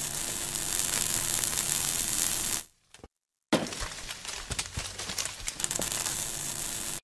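Crackling, sizzling fire-and-sparks sound effect for an animated burning-logo intro, full of fine crackles. It fades out under three seconds in, then after a short silence starts again with a sharp hit and more crackling, and cuts off abruptly at the end.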